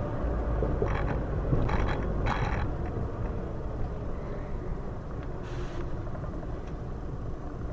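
Steady low road and engine rumble of a vehicle driving at highway speed, heard from inside through a dash camera, with a few brief rattles about one to two and a half seconds in.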